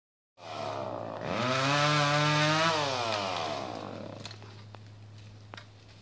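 Chainsaw revved up from a low run about a second in, held at high revs for over a second, then the throttle is let off and the engine winds down and fades.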